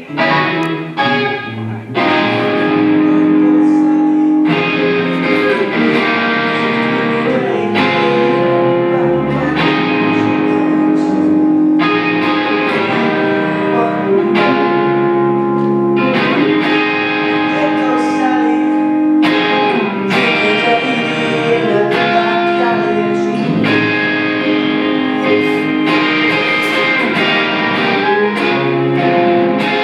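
Guitar playing sustained chords, changing every couple of seconds, starting in full about two seconds in.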